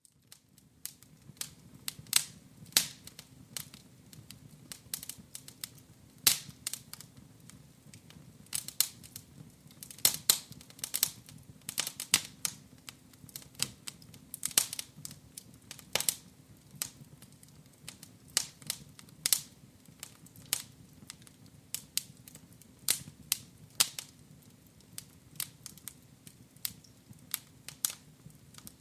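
Wood fire crackling in a fireplace: irregular sharp pops and snaps, several a second, over a faint low steady rumble.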